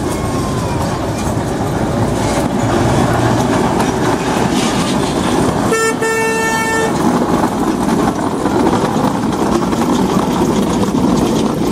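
Narrow-gauge mine train rumbling and clattering along the track as its cars pass close by. About six seconds in, the locomotive's horn sounds once for about a second.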